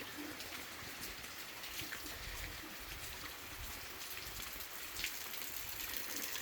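Steady rain falling, an even hiss with the occasional sharper tick of a single drop striking close by.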